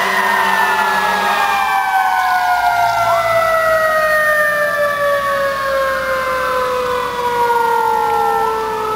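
Mechanical fire-engine siren, a Federal Q-type, slowly winding down in pitch as it coasts. It is wound back up about three seconds in and again near the end, so the wails overlap.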